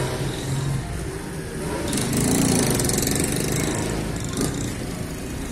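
A motor vehicle's engine running steadily amid street traffic, growing louder for a second or so around the middle.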